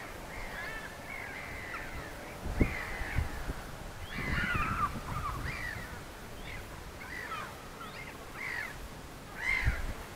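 Crows and seagulls squabbling over food, many short calls overlapping throughout. A few low thumps come through, about two and a half seconds in and again near the end.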